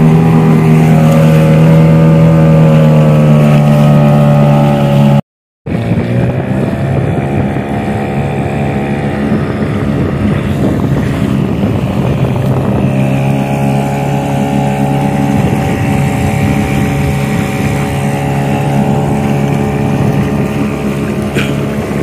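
Small fishing boat's motor running steadily under way, with wind and water noise. The sound cuts out completely for about half a second around five seconds in, then the motor carries on at a slightly lower level.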